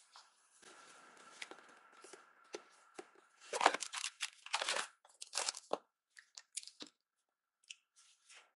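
Cardboard phone retail boxes and packaging being handled on a desk: irregular rustles, scrapes and light knocks, thickest and loudest around the middle and thinning toward the end, with a faint steady high hum underneath.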